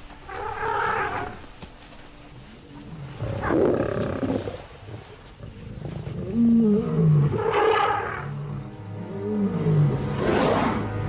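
Lioness growling in four loud bursts.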